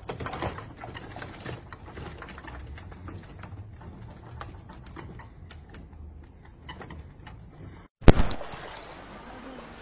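Light irregular rattling and creaking of office furniture and loose objects shaking in an earthquake, over a low rumble. About eight seconds in, a sudden loud burst of noise that fades within a second.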